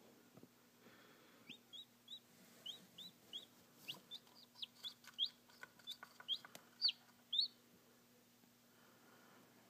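Newly hatching chick peeping: a run of short, high peeps, each rising in pitch, about three a second, starting about a second and a half in and stopping about two seconds before the end.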